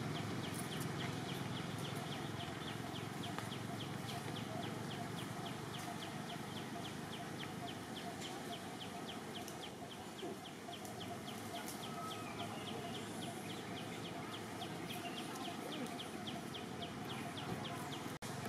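Outdoor forest ambience with a steady run of short, high chirps, about four a second, from an insect, over a soft background hiss.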